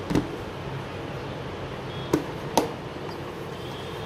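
Three short, sharp knocks of kitchen utensils against a mixing bowl, one near the start and two close together a little past halfway, while flour is added to the batter. Steady low hum beneath.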